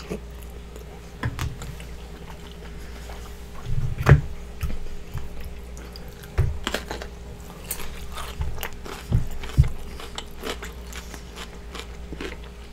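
Close-miked chewing and mouth sounds of a person eating a seafood boil in sauce, with many small wet clicks. A few soft low thumps, the loudest about four seconds in.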